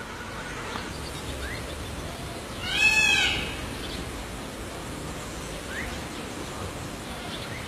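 A peacock gives one loud call about three seconds in, a short wail that rises and falls in pitch with several overtones, over a steady background hiss. A couple of faint short rising chirps come earlier and later.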